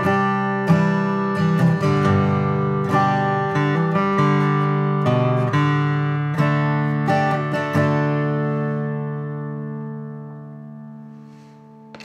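Taylor 322ce 12-fret acoustic guitar, mahogany top, strummed in chords. A final chord is left ringing at about eight seconds in and fades away slowly.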